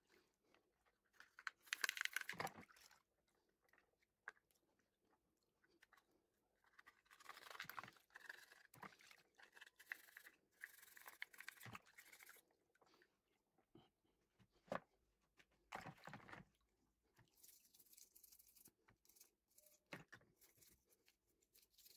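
Toothbrush scrubbing a plastic car air-vent diffuser in a basin of water: faint, irregular bursts of bristle scratching, with a few light clicks.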